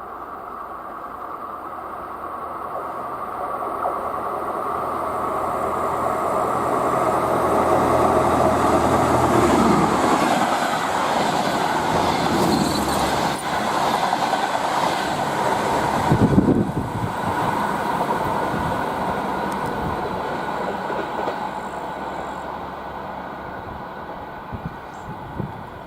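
DR1A diesel multiple unit running through at speed. Its engine drone and the rush of wheels on rail build up over the first ten seconds, peak loudest about two-thirds of the way through as it goes by, then fade away as it recedes.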